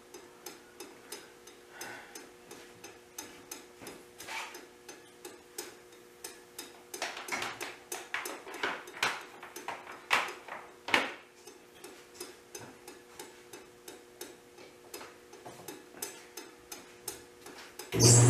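A run of light, fairly regular clicks and knocks, louder around the middle, over a faint steady hum. In the last moment a machine motor switches on and runs loud and steady.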